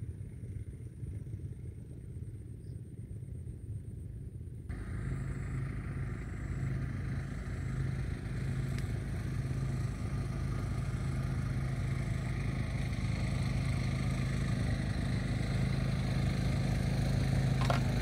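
A motor engine running steadily, coming in suddenly about five seconds in and slowly growing louder.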